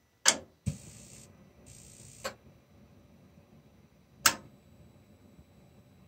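Columbia atmospheric gas-fired steam boiler's ignition sequence starting: a few sharp spark clicks and two short hisses in the first two seconds, then one loud click about four seconds in, as the burner is lit.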